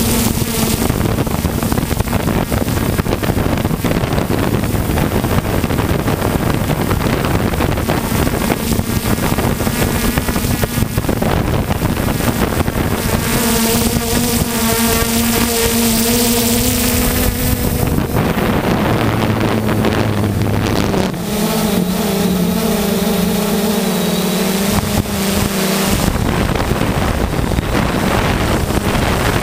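3DR Solo quadcopter's motors and propellers whirring loudly, with wind rushing over the microphone. A steady hum rises out of the noise a few times and shifts in pitch as the throttle changes.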